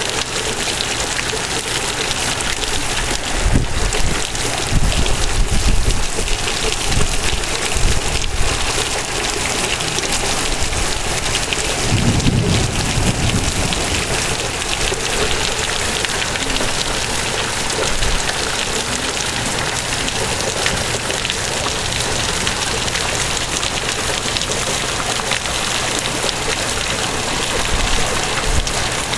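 Torrential rain pouring down in sheets, a loud, steady hiss of heavy rain on roofs and ground. Low rumbles swell up a few times, about four to eight seconds in and again about twelve seconds in.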